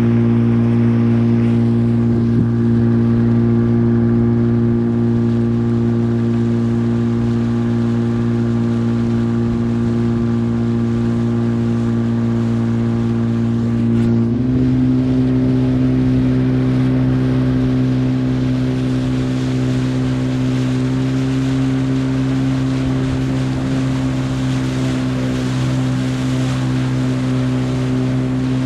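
Yamaha 30 hp two-stroke outboard with a water-jet attachment running steadily at speed, its pitch stepping up slightly about halfway through.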